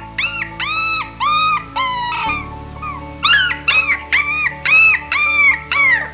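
Dog giving a rapid series of short, high yelps, about two a second, each rising then dropping in pitch, over background music with steady held notes.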